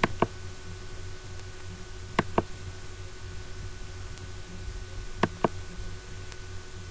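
Three sharp double clicks, each two quick clicks about a fifth of a second apart, with two to three seconds between the pairs, over a faint steady electrical hum.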